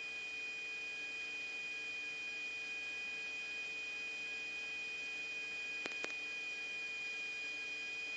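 Open radio channel between transmissions: steady hiss with a constant high electronic whine and a lower hum, and two faint clicks about six seconds in.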